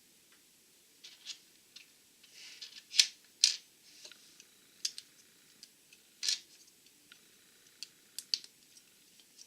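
Plastic Lego bricks clicking and tapping as pieces are handled and pressed together: irregular sharp clicks with light rustling, the loudest two close together about three seconds in and another just after six seconds.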